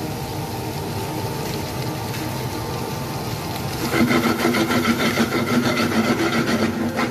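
Spatula scraping and stirring diced potatoes in a frying pan, in quick rhythmic strokes that start about four seconds in and are louder than the steady hiss before them.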